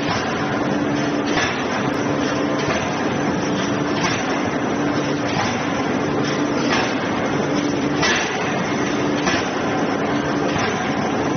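A 16-ton electro-hydraulic open-die forging hammer striking a hot billet over and over, about one blow every 1.3 seconds, over a steady hum and dense machine noise.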